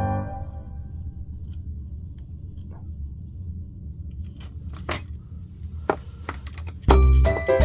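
Background piano music dies away, leaving a low hum with scattered light clicks and taps of small hard objects being handled. Chiming background music starts again near the end.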